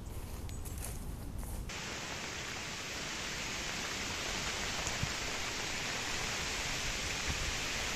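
A low rumble for about the first two seconds, then an abrupt switch to a steady, even hiss.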